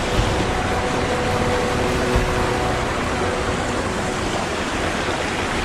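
Small mountain stream cascading over rocks close to the microphone: a steady, loud rush of water.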